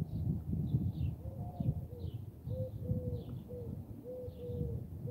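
A dove cooing in repeated short phrases of two or three low coos, while a small bird chirps high about twice a second. Under both runs a low, irregular rumble, which is the loudest sound.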